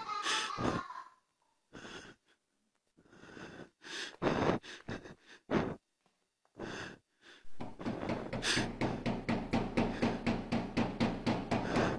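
Scattered short breaths and rustles, then from about seven and a half seconds in a rapid, even run of breathy wheezing pulses, about four a second, over a low steady hum. The pulses are an eerie, wheezing laugh.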